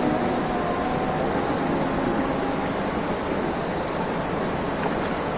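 Steady rushing noise of a fast-flowing river swollen by heavy rain.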